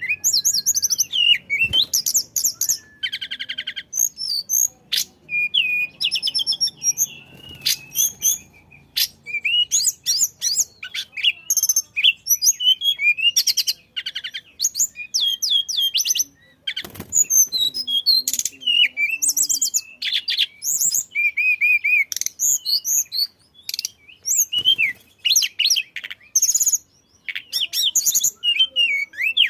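A tledekan songbird singing vigorously: a fast, varied run of high chirps, rapid trills and short whistled phrases with only brief pauses.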